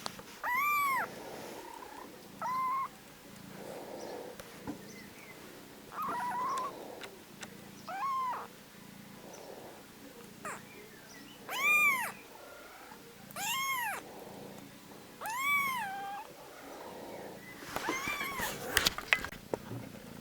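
Baby kittens meowing: about eight high, arching mews spaced a couple of seconds apart, with soft purring between them. A few short clicks come near the end.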